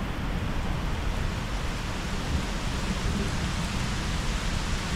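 Steady rain during a thunderstorm, with a low rumble of distant thunder running underneath and no sharp crack.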